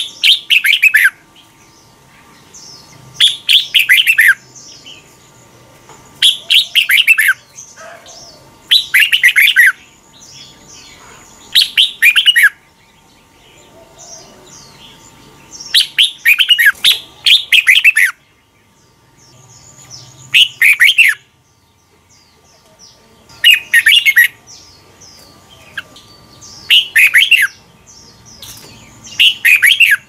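Red-whiskered bulbul singing: short, loud warbled phrases of about a second each, repeated roughly every three seconds, about ten in all.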